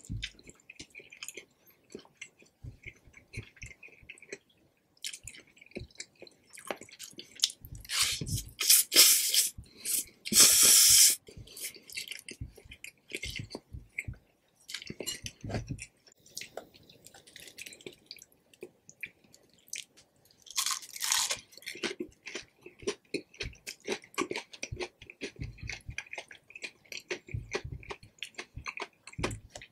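Close-miked eating of Indomie Mi Goreng instant fried noodles: wet chewing and small mouth clicks, with loud slurps about a third of the way in and again about two-thirds through.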